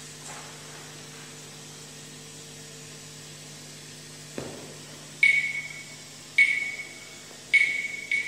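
Quiet room with a faint steady hum, then about five seconds in, four sharp ringing taps: the first three about a second apart, the fourth sooner. The taps count in the tempo for a violin ensemble about to start playing.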